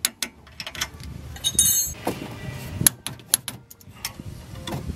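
A wrench working the steel nut of a sway bar end link as it is snugged down: a string of irregular metallic clicks and clinks, with a brief ringing clink a little past a second and a half in.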